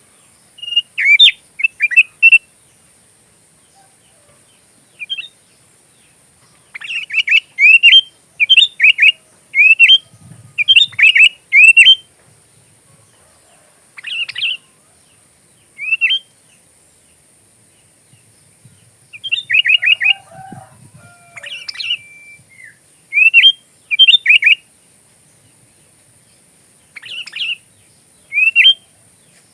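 Sooty-headed bulbul (kutilang) singing: short phrases of quick, slurred whistled notes, repeated with pauses of a second or more between them.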